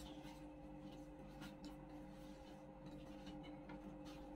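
Faint scattered ticks and rustles of hands tearing paratha flatbread and touching plates, over a steady faint hum in a near-quiet room.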